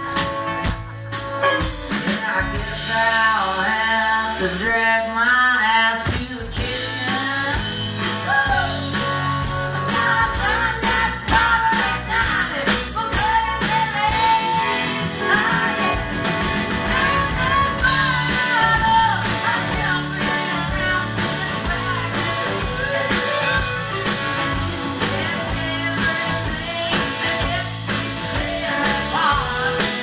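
Live country-rock song played through a stage PA: a woman singing lead over a strummed acoustic guitar and an electric guitar. The low end of the band drops out for a few seconds early on, then comes back in.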